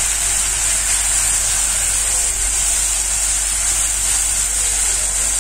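Ground onion paste and whole spices frying in hot oil in a kadhai: a steady sizzle as the onions are stirred and browned to a light golden colour.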